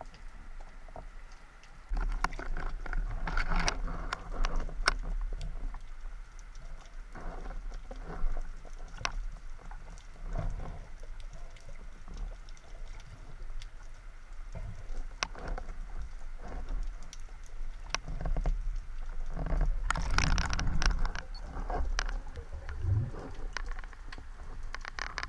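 Underwater sound of a free-diving spearfisher swimming, picked up through an underwater camera: water swishing and rushing with many scattered sharp clicks and crackles over a low rumble, louder for a couple of seconds near the end.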